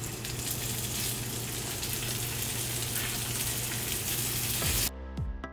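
Salmon cakes sizzling steadily in canola oil heated to the smoking point in a cast iron skillet as they are laid into the pan. Near the end the sizzle cuts off abruptly and electronic music with a pulsing beat starts.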